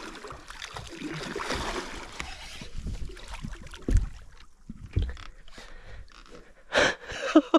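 A hooked fish thrashing and splashing at the surface beside the boat as it is played in on a bent rod. Two short dull thumps come about four and five seconds in, and a brief louder burst of splashing comes near the end.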